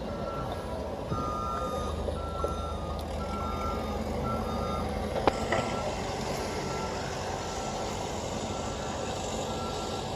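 Heavy machine's warning alarm beeping steadily, about one and a half short beeps a second, over the steady rumble of its diesel engine. One sharp knock comes about five seconds in.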